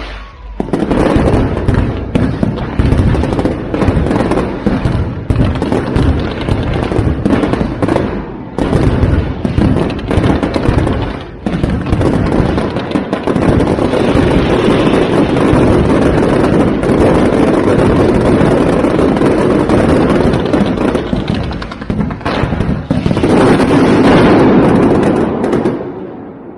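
Fireworks going off in rapid succession: a dense barrage of bangs and crackle that builds to its loudest a little before the end, then dies away.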